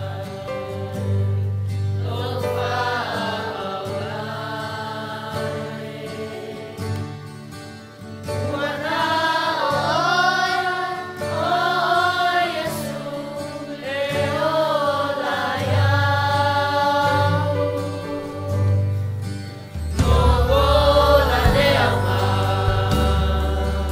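Mixed choir of children and adults singing a Samoan hymn, with sustained low notes beneath the voices; the singing grows louder about twenty seconds in.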